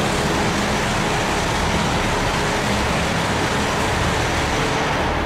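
Shinkansen bullet train passing a station platform at high speed: a loud, steady rush of air and wheel noise.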